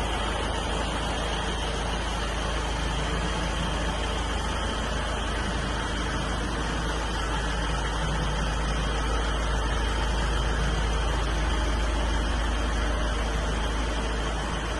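Iveco Daily 50c15's 3.0-litre four-cylinder diesel engine running steadily, a continuous even rumble with no change in pitch.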